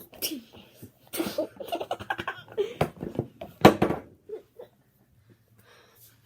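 A person's voice laughing and making wordless noises in short broken bursts, with one loud burst a little before four seconds in; after that it drops to near quiet.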